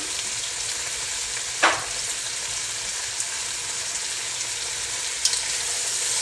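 Chopped onion, Scotch bonnet pepper, Brussels sprouts and cauliflower sizzling steadily in hot olive oil in a pot, stirred with a spoon. There is one sharp knock about a second and a half in and a few light clicks near the end.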